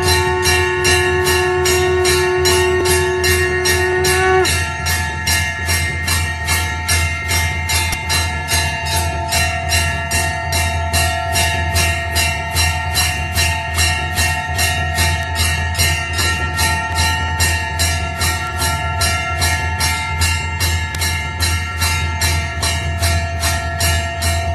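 Hindu temple bells (ghanta) rung rapidly and without pause for the aarti, about three strikes a second, over a steady low drone. A held tone sounding over the bells stops about four and a half seconds in.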